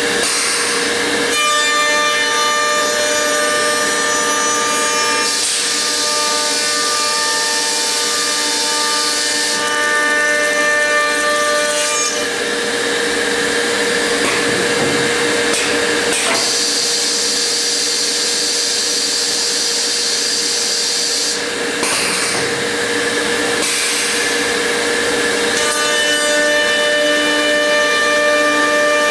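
High-speed router motors of a CSR-700 automatic stair trencher running with a steady whine as they rout trenches into a wooden stair stringer. The cutting noise changes every few seconds as the cuts go on.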